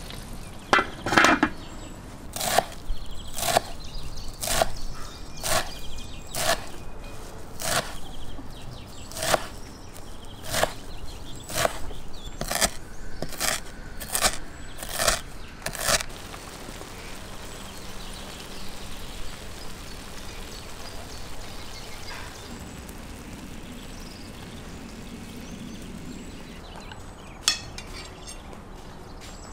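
Kitchen knife chopping fresh green herbs on a wooden cutting board: single sharp chops about a second apart, quickening to about two a second, then stopping. Just before the chopping, a louder clatter as a metal lid comes off a large pan.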